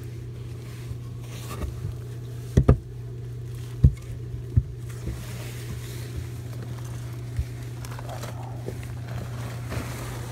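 A person in a disposable protective suit crawling through a tight attic eave space: suit rustling and scraping, with a few sharp knocks, the loudest a pair about two and a half seconds in and another near four seconds. A steady low hum runs underneath.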